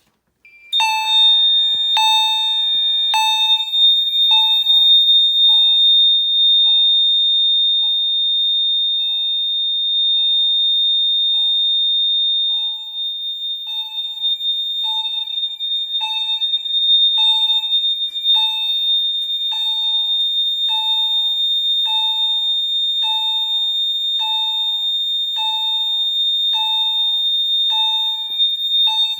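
Home fire alarm system in alarm: a steady high-pitched electronic tone with a repeating ding about once a second, starting about a second in.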